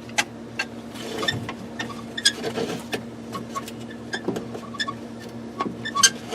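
Irregular clicks and small metallic clinks of hand work on the door's handle mount, freeing the remains of the old pop rivet, over a steady low hum. The sharpest click comes about six seconds in.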